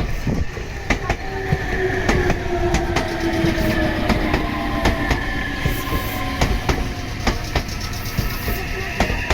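Meitetsu electric train running past, its wheels clicking over the rail joints over a steady rumble, with a tone that slowly drops in pitch.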